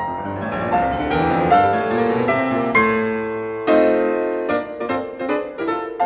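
Background piano music: notes struck one after another with a few louder chords, the largest about three-quarters of the way through.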